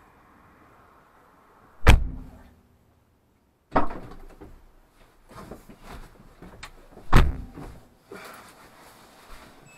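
Car doors shutting on an Audi TT: loud slams about two seconds and about seven seconds in, another knock near four seconds, and rustling and bumps between as someone climbs into the passenger seat.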